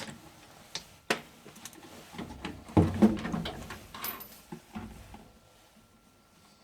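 Scattered clicks and knocks of a furnace inducer motor and its sheet-metal housing being worked loose and lifted off, with a cluster of heavy clunks about three seconds in and a brief scrape soon after.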